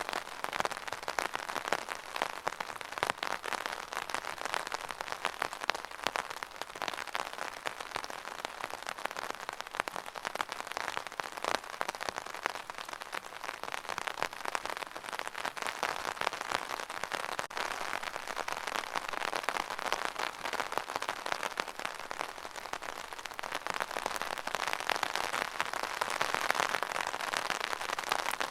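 Steady rain falling: a dense, even hiss of countless small drop impacts, growing slightly heavier near the end.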